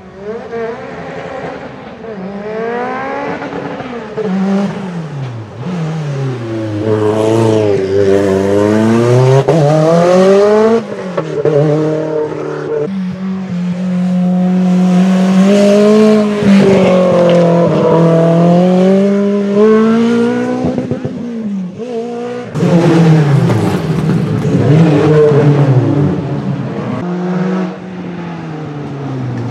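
Peugeot 205 T16 Group B rally car's turbocharged four-cylinder engine revving hard, its note climbing and dropping in pitch again and again as it accelerates and changes gear on several runs past.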